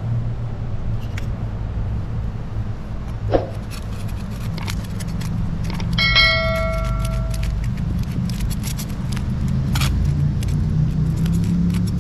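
A knife scraping the scales off a tilapia on a river rock, in quick, irregular scrapes and clicks over a steady low rumble. About six seconds in, a short chime of several held tones sounds: a subscribe-button sound effect.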